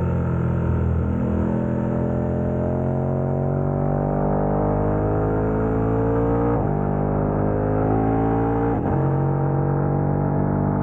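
KTM 1290 Super Adventure's V-twin engine through a Wings aftermarket exhaust, accelerating with its pitch rising steadily, broken by two quick upshifts, one a little past halfway and another about two seconds later.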